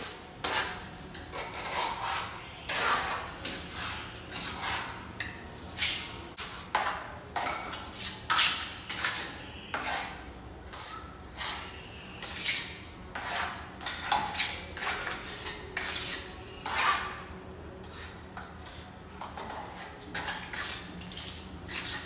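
Steel trowel scraping and slapping wet cement mortar onto a rough concrete stair side and scooping it off a hawk: a long run of short, irregular scrapes and light slaps, roughly one or two a second.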